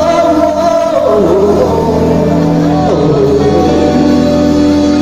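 Live band playing a pop-rock cover: a voice sings "home" with sliding notes about a second in and again near three seconds, over held keyboard chords, bass guitar and drums.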